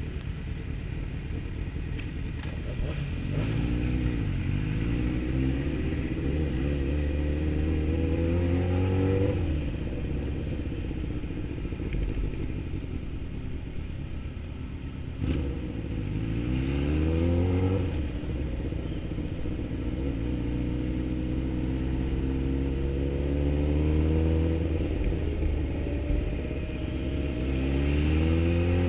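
Sportbike engine accelerating under the rider, its pitch climbing in three separate pulls, each followed by an easing off.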